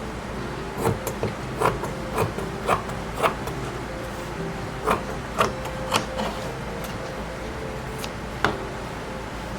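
Scissors cutting fabric, trimming the edges of a sewn cloth tube: a string of short, sharp snips at an uneven pace, thinning out after about six seconds with one last snip near the end.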